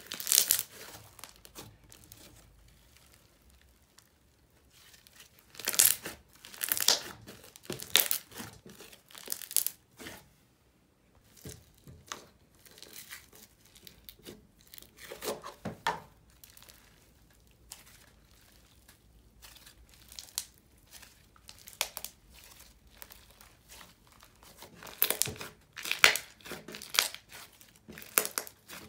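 Slime being squeezed, pressed and poked by hand, including a semi-floam snow fizz slime packed with foam beads, giving off crackly, crinkling pops in irregular bursts with quieter stretches between.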